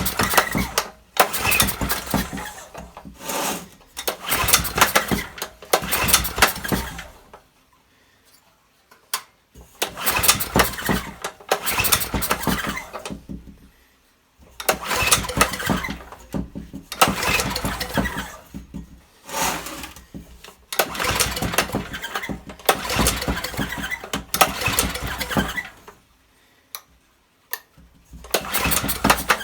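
Old Honda generator's small engine being pull-started with its recoil starter, cranked over again and again in bursts of a few seconds with short pauses between, without settling into running. The engine is hard to start: an ignition fault with the contact-breaker points, primed with a squirt of petrol in the carburettor.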